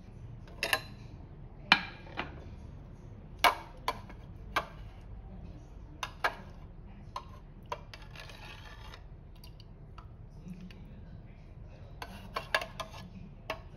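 Metal ladle clinking against the rim and sides of an aluminium saucepan while scooping dumplings and broth, in a series of separate sharp clinks with a short scraping, sloshing stretch about eight seconds in and a quick run of clinks near the end.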